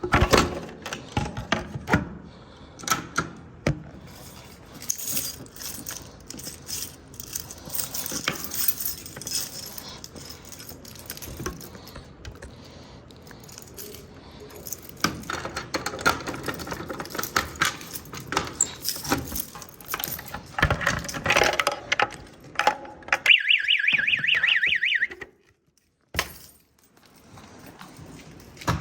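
Clicks, knocks and rattles of handling and moving equipment, irregular and loud. About 23 seconds in, a pulsing high electronic alarm tone sounds for about two seconds and then cuts off suddenly.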